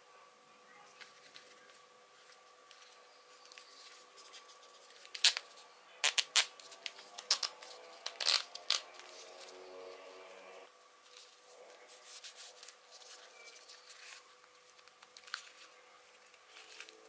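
Handling noise of Bose QuietComfort 35 II over-ear headphones being turned and flexed in the hands. A cluster of sharp plastic clicks from the folding hinges and headband comes between about five and nine seconds in; the rest is soft rubbing and faint taps.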